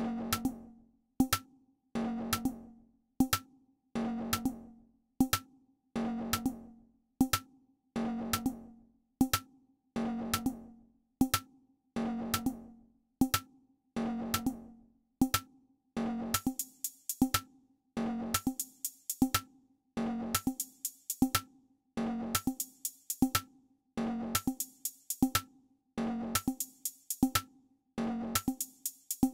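Patterning drum machine app playing a looped, sequenced drum pattern: low pitched drum hits in a steady beat with short hi-hat ticks between. From about sixteen seconds in, clusters of bright, crisp percussion hits join the loop.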